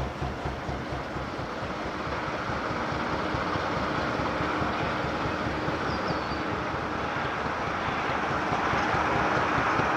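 Slow, even thudding of a narrowboat's Petter McLaren B2 diesel engine, fading within the first second into a steady rushing noise that slowly grows louder.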